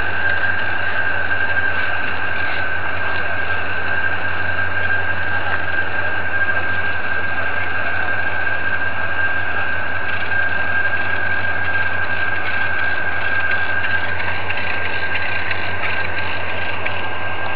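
Heavy diesel engine of a lorry-mounted crane running steadily while it lifts a marine engine. A low hum sits under a steady high-pitched whine.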